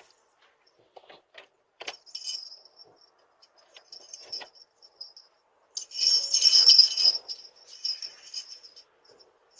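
Small jingle bells shaken in bursts, a bright metallic jingling that is loudest about six seconds in. A few short knocks or clicks come before the jingling in the first two seconds.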